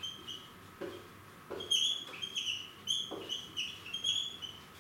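Marker squeaking on a whiteboard while words are being written: a quick, uneven series of short, high squeaks.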